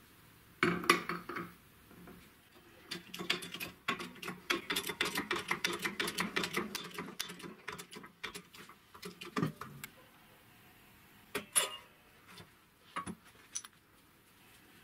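Steel parts of a wheel hub and bearing being handled on a press bed: a sharp metal clank under a second in, then a quick run of metallic clicking for several seconds, and a few separate knocks and clinks near the end.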